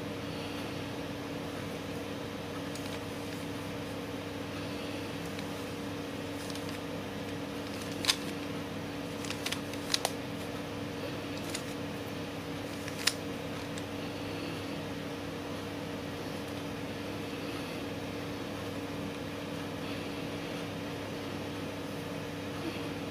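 A steady background hum, with a handful of sharp plastic clicks from a 3x3 puzzle cube's layers being turned, bunched from about a third of the way in to just past halfway.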